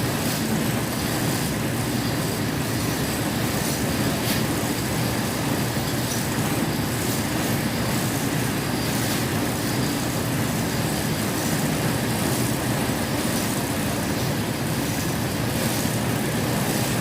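A thread-spinning machine running steadily, its spinning thread and mechanism making an even, continuous mechanical hum.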